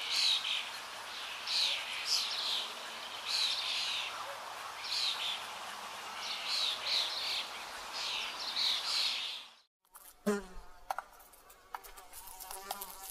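Short, high chirping calls repeat every second or two over a steady hiss. About ten seconds in they cut off suddenly, and a buzzing with a few sharp clicks follows.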